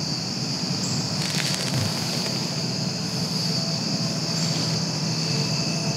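Steady high chorus of crickets and other insects, with one short hissing blast of air about a second and a half in: a whitetail doe blowing, the alarm snort of a deer that has spotted danger.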